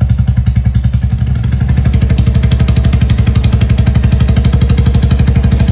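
Royal Enfield Meteor 350's single-cylinder engine idling through a Mini Punjab free-flow aftermarket silencer, giving a steady, rapid thump. The beat is a little uneven at first and settles about a second and a half in.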